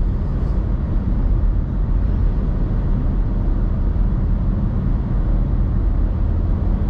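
Steady low rumble of a car's road and engine noise heard inside the cabin while cruising on a highway.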